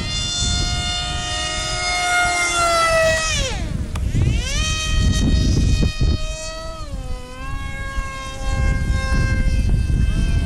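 Electric motors and propellers of Depron foam RC jets whining in flight. The pitch drops steeply about three and a half seconds in as the throttle is cut, then climbs straight back up, with smaller dips and rises later as the pilots work the throttle. A low rumble of wind on the microphone runs underneath.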